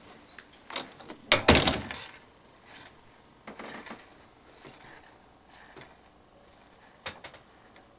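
Door and handling noises: a few sharp clicks and knocks, the loudest about a second and a half in, then fainter rustling and one more click near the end.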